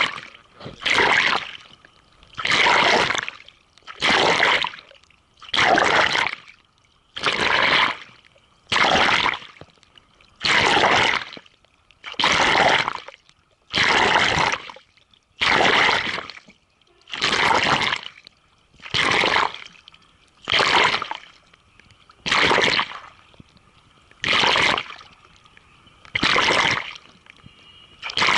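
Kayak paddle strokes: a regular swish and splash of the blade entering and pulling through the water, about one stroke every second and a half, with water trickling off the paddle in between.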